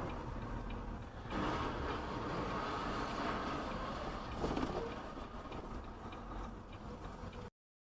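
Steady vehicle driving noise, a low rumble with a couple of brief knocks, cutting off abruptly near the end.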